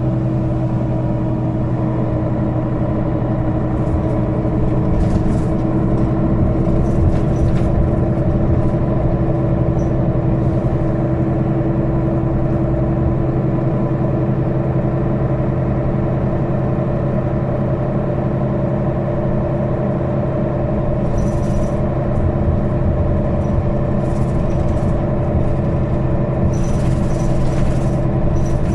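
Mercedes-Benz Citaro O530 city bus heard from inside the passenger cabin, its engine running at a steady, unchanging pitch. Brief light rattles of interior fittings come through a few times.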